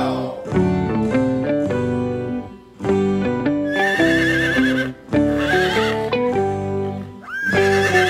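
Cheerful background music with a steady run of notes. Over it, a horse-like whinny with a quavering pitch comes in about four seconds in and repeats twice; the last call starts with a quick upward glide.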